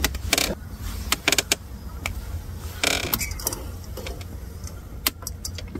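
Light clicks and knocks of a cup and small utensils being handled, a few scattered taps with a longer scratchy sound about three seconds in, over a steady low rumble.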